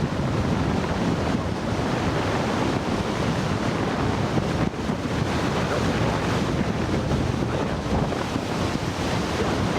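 Steady, loud rush of wind buffeting the microphone.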